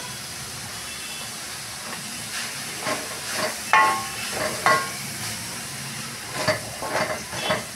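Shredded chicken and vegetables sizzling in a hot metal kadhai, a steady hiss. From about two seconds in, a wooden spatula stirs and scrapes against the pan in short, irregular strokes.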